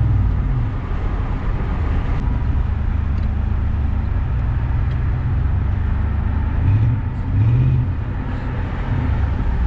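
305 small-block V8 of a 1993 Chevrolet Caprice wagon running while the car is driven, with steady road noise. The engine pitch briefly rises and falls twice, about seven seconds in.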